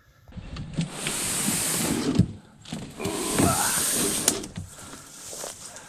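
Canoe hull scraping over the shore as it is shoved off into the water: two long scrapes of about two seconds each, with a sharp knock at the end of the second.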